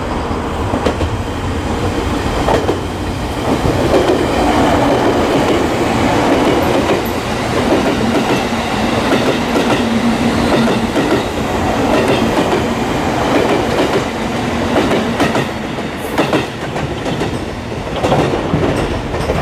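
JR Kyushu 783 series limited-express electric train, the Midori and Huis Ten Bosch sets coupled, passing through the station without stopping. Its wheels rumble steadily and clack now and then over rail joints as the cars run by.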